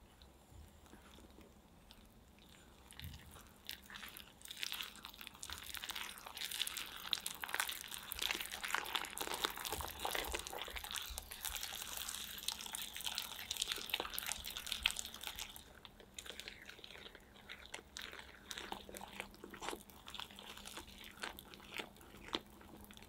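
Wire balloon whisk stirring thick cookie batter in a glass bowl: rapid clicking and scraping of the wires against the glass, with a wet squish from the batter. It starts faint, is busiest through the middle, and eases off over the last several seconds.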